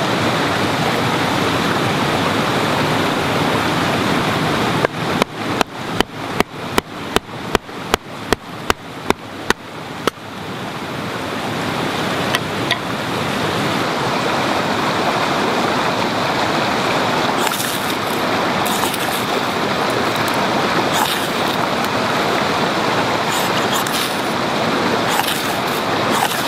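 Steady rush of a forest stream throughout. About five seconds in comes a quick run of some fifteen sharp hatchet chops into wood, about three a second, splitting kindling. From about two-thirds of the way through, a ferro rod is scraped several times in short strokes, throwing sparks onto wood shavings.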